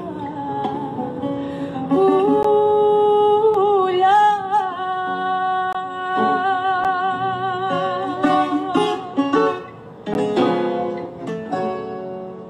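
A woman singing a Greek song with a wavering vibrato, accompanied by guitar and bouzouki.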